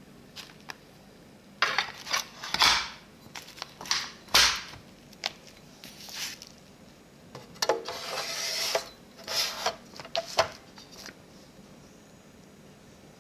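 A 3.5-inch hard drive being handled and slid into a screwless hot-swap bay: a string of plastic and metal clicks and knocks, with a scraping slide about eight seconds in.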